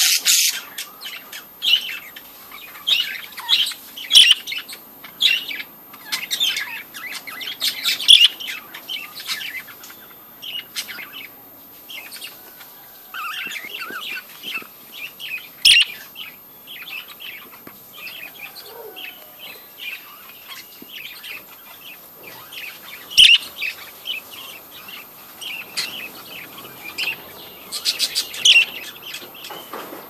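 Several budgerigars chirping and chattering in quick, high-pitched bursts, with a couple of sharp clicks in between.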